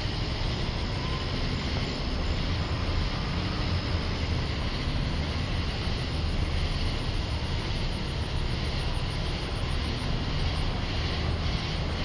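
Steady night chorus of cicadas, an even hiss with a faint fast pulsing high up, over a constant low rumble.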